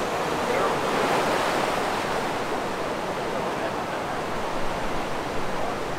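Steady rushing of breaking ocean surf, swelling slightly about a second in.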